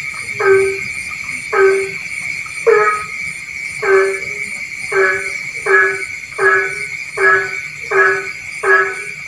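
A frog calling over and over: about ten short, nasal, pitched calls, roughly one a second and coming a little faster toward the end. A steady high-pitched drone runs behind the calls.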